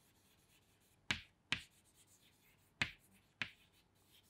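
Chalk writing on a chalkboard: four short sharp taps of the chalk against the board, the first about a second in and the last about three and a half seconds in, with faint scratching between.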